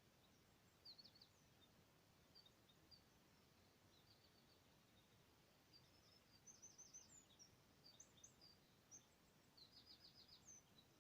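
Faint birdsong: scattered short high chirps and quick trills of four or five rapid notes, with trills about a second in, past the middle and near the end, over a low steady hiss.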